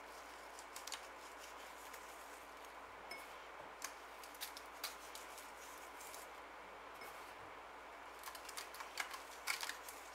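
Faint, scattered small clicks and rustles of fingers pinching desiccated coconut from a bowl and sprinkling it by hand over a iced slice, over low room hiss; the clicks come a little more often near the end.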